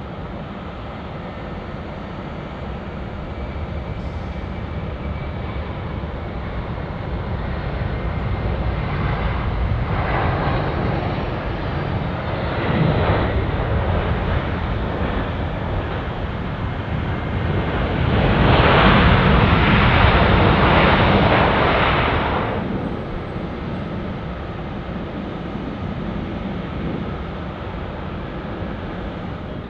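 Jet aircraft passing by, its engine noise swelling over several seconds, loudest about two-thirds of the way through, then fading away.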